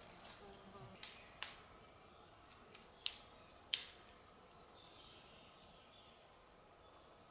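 Quiet outdoor background with four sharp, short cracks: about a second in, half a second later, then two more around three and three and a half seconds. Faint, short, high bird chirps come in between.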